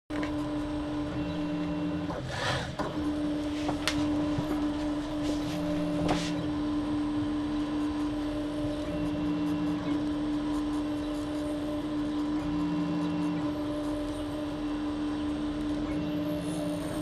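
RepRapPro Mendel 3D printer printing: a steady mechanical hum, with a short lower motor tone returning about every three and a half seconds as the head moves. There are a few sharp clicks in the first six seconds.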